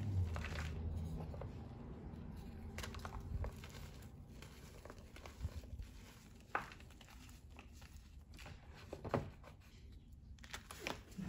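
Hands squeezing and crumbling soft, powdery reformed gym chalk: a low, soft crunching and crinkling of packed chalk giving way, with a few sharper crunches about six and a half and nine seconds in and just before the end.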